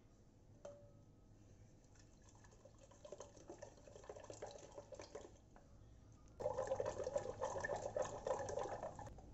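Wooden hand churner (madhani) whisking yogurt and strawberry purée in a steel pot into lassi: a rapid liquid swishing and slapping that starts about three seconds in, grows much louder at about six seconds, and stops just before the end.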